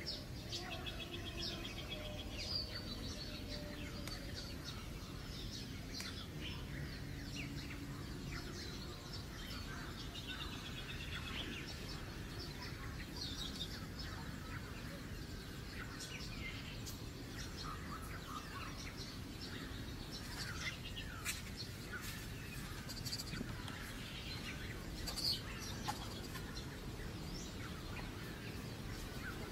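Many short, high chirping calls, scattered irregularly over a steady low background noise, with occasional sharp clicks; one click stands out about 25 seconds in.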